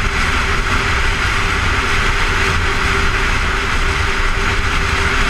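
Heavy wind rush on the microphone of a Honda motorcycle riding at freeway speed, with the engine and tyre rumble droning low and steady underneath.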